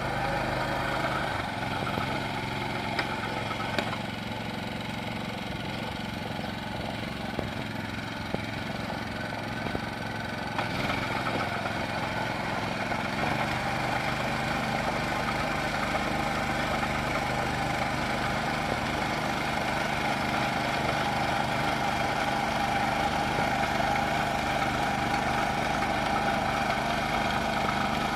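Small engine of a rice transplanter running steadily, with a slight change in pitch and a little louder from about eleven seconds in.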